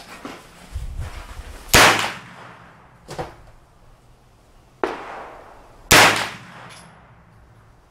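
Slow, deliberate gunshots from a CMMG MK9T 9mm carbine: two loud shots about four seconds apart, each with a brief ringing tail. Two fainter reports fall between them.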